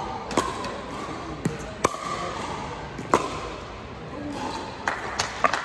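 Pickleball paddles striking a hard plastic ball during a rally: sharp pops roughly every second and a half, then a quicker run of hits near the end.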